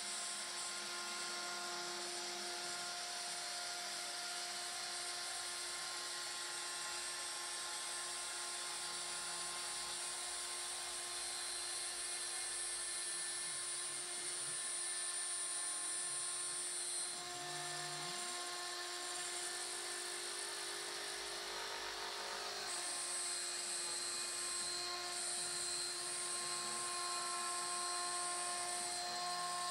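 The Proxxon spindle of a homemade gantry CNC router running steadily at high speed as its bit mills a curved groove into a wooden panel. It gives a steady high whine over hiss, and its tones shift in places as the cutter moves along the outline.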